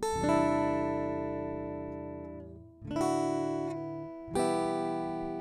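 Instrumental music: acoustic guitar chords struck three times and left to ring, each fading slowly before the next.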